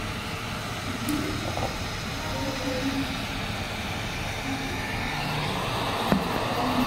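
Hot air rework station's blower giving a steady rush of hot air, used to reflow the cold solder balls under a laptop's AMD CPU. There is one sharp click about six seconds in.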